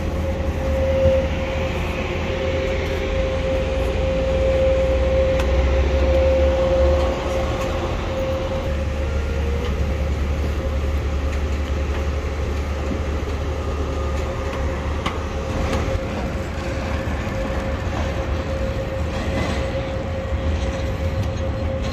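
Machinery droning on an airport apron beside a parked airliner: a steady whine over a constant low rumble.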